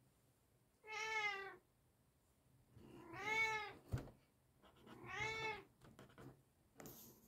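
Three meows, each arching up then down in pitch and lasting about a second, spaced about two seconds apart, with a sharp click about four seconds in.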